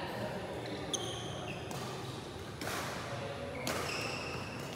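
Badminton court sounds in a large hall: a single sharp tap about a second in, short high squeaks of court shoes, and about a second of rushing noise near the middle.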